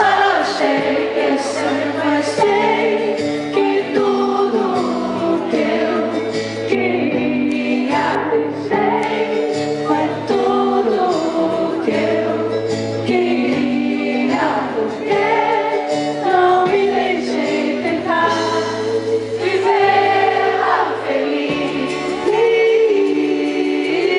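Live band music with voices singing over a steady bass line.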